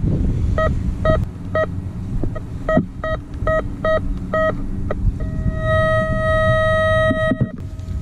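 Garrett Ultra GTA 1000 metal detector beeping as its coil sweeps over a buried metal target: three short beeps about half a second apart, then four more, then a steady tone held for about two seconds.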